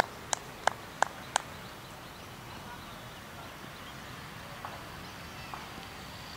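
Hand claps in a steady rhythm, about three a second, stopping about a second and a half in; then faint open-air background with a couple of soft knocks.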